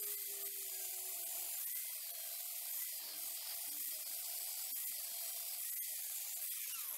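Electric angle grinder grinding metal off the edge of a metal bracket, a steady high hiss that does not let up.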